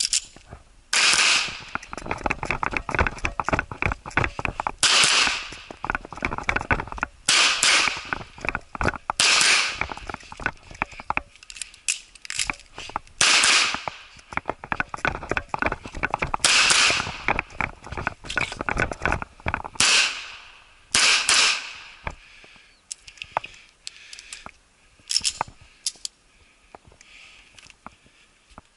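A 9mm CZ SP-01 Shadow pistol firing a string of shots, many in quick pairs, spread through a moving stage run. Between the shot groups there are quieter clicks and handling noise.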